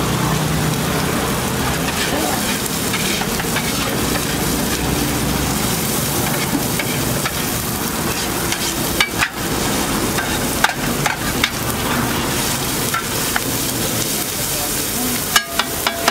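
Chopped onion and tomato sizzling in hot oil on a large flat griddle, a steady frying hiss. In the second half a metal spatula clacks and scrapes against the plate as it spreads the mix, in sharp clicks, several together near the end.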